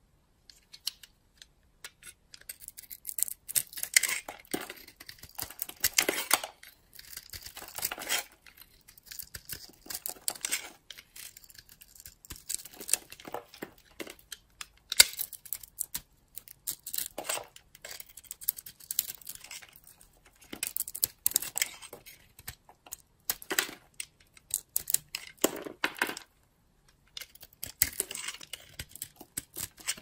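Utility-knife blade cutting and scraping into a hard bar of soap, crisp crunching as chips and flakes break off, in repeated strokes with short pauses between.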